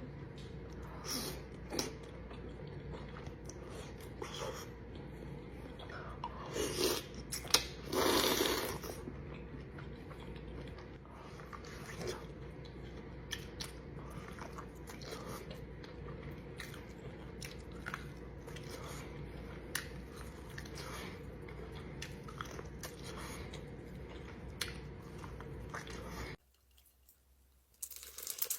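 Close-miked eating of a seafood boil: chewing and wet mouth sounds with scattered small clicks, and a louder stretch about eight seconds in. The sound drops away suddenly about 26 seconds in, and crunching starts near the end.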